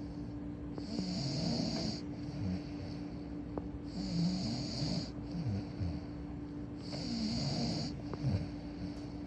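A sleeper snoring in a slow, regular rhythm, about one breath every three seconds, each breath a hissing intake with a low, wavering rattle.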